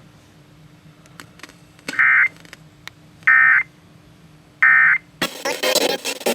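EAS/SAME End-of-Message data tones: three identical short, shrill digital bursts about a second and a half apart, marking the end of the emergency alert. A little after five seconds the audio cuts abruptly to a louder, crackly, noisy recording.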